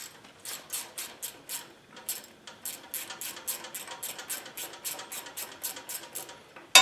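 Ratchet wrench clicking in quick, even strokes, about four clicks a second with a brief pause, as it backs out a 14 mm bolt. Near the end comes one loud, sharp metallic clank with a short ring.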